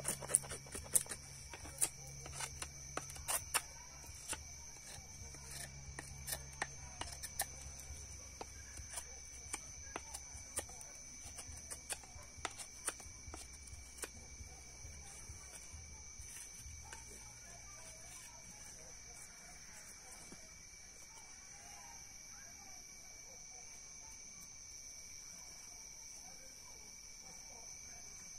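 Batoning: a wooden baton strikes the spine of a knife to split a thin piece of wood. There is a quick, irregular run of sharp wooden knocks that thins out about eight seconds in and stops at around sixteen seconds.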